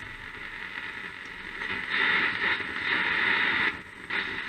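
Bush VHF90 valve radio's speaker hissing with AM static while being tuned. The hiss swells about two seconds in and cuts out briefly near the end, a sign of the intermittent connection that the owner traces to the radio's AM section.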